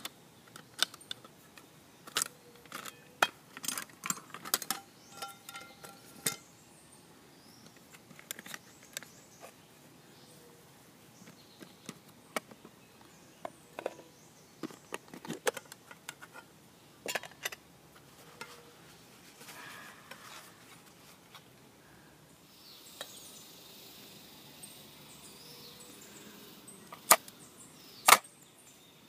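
Aluminium mess-kit pots, lids and pans clinking and clattering as they are taken apart and set down, in bursts of light metallic knocks, with two loud sharp clicks near the end.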